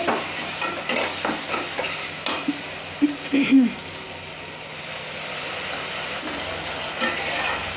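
A metal spatula stirring and scraping thick curry masala frying in oil in a kadhai, over a steady sizzle. The masala is being fried with constant stirring so it cooks through. The scrapes come thick for the first few seconds, ease off, then pick up again near the end.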